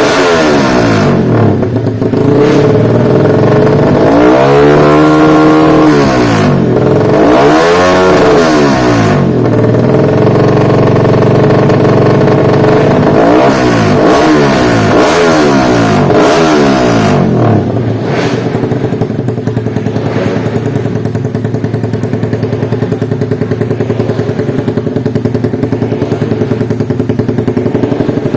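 Race-tuned Yamaha MX King 150 cc single-cylinder four-stroke engine revved repeatedly, its pitch rising and falling through several long revs, then a run of quick throttle blips, before it settles into a steady idle for the last ten seconds or so.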